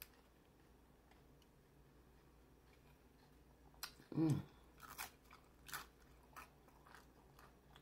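Close-up mouth sounds of a person eating crisp fried corn tortilla (nacho chips and hard taco shell): a few sharp crunches and chewing, starting about four seconds in, with a brief vocal sound among them.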